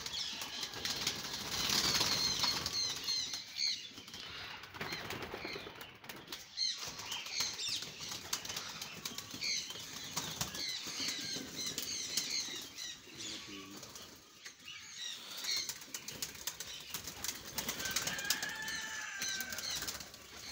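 Pigeons flapping their wings in bursts in and around a rooftop loft, with high bird chirps scattered throughout.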